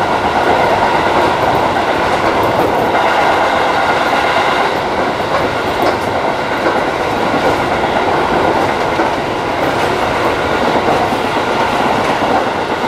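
Seibu 3000 series electric train running at speed, heard from inside the front car: a steady rumble of wheels on rail with a constant hum, and now and then the click of a rail joint.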